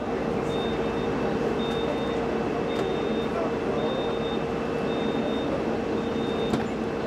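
Steady running noise of aircraft and ground equipment on an airport apron, with a constant hum, and a short high electronic beep repeating about once a second.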